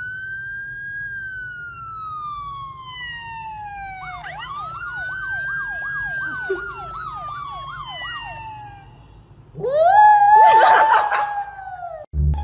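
Siren sound played from a smartphone: a long wail that rises and slowly falls, joined about four seconds in by a fast warbling yelp at about three cycles a second, then a louder, steadier wail near the end.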